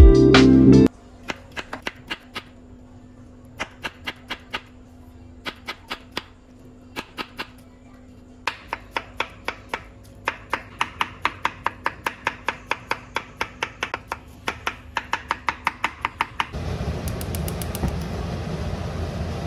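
Kitchen knife cutting dragon fruit flesh on a wooden cutting board: scattered cuts at first, then steady rapid chopping at about four strokes a second. Near the end the knocks stop and a gas stove burner burns with a steady hiss.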